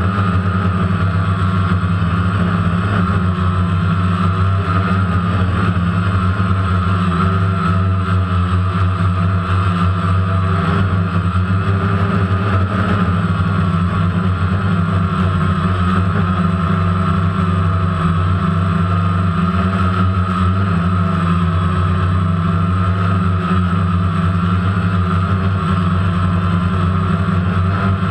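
DJI Phantom quadcopter's four electric motors and propellers running in flight, a steady loud hum and whine with a pitch that wavers slightly. Heard up close from the GoPro mounted on the drone.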